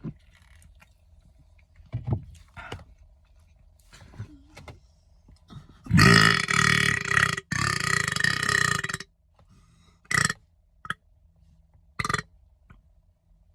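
A man's long, loud burp lasting about three seconds, broken once briefly midway, after a few quieter short sounds; a few short clicks follow.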